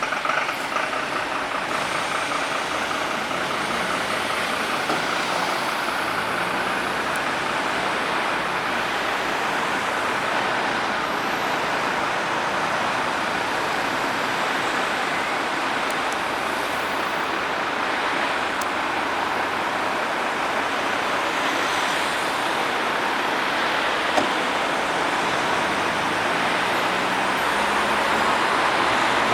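Steady road traffic noise of vehicles driving past, growing a little louder near the end.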